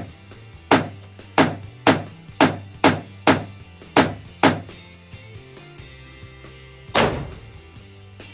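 Pistol shots in an indoor shooting range: eight in quick succession about two a second, then a single shot about seven seconds in, each with a short echo.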